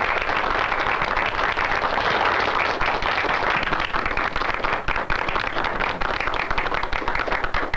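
Audience applauding steadily, breaking off at the very end.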